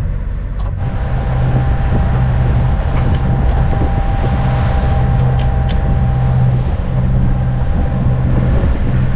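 The Beneteau 393 sailing yacht's inboard diesel engine running steadily under way, a low drone with a faint steady whine above it. A few faint clicks come through partway in.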